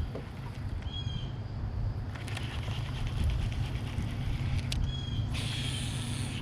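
Boat motor running with a steady low hum. Short high chirps come about a second in and again near five seconds, and a hiss rises over the last second.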